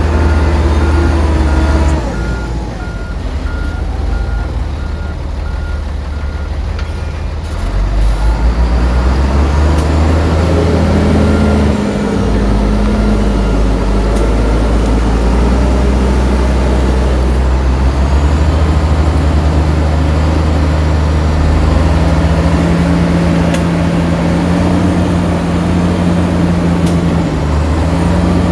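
Heavy diesel earthmoving machinery running loud, the engine revving up and down under load. A reversing alarm beeps steadily for the first several seconds, then stops.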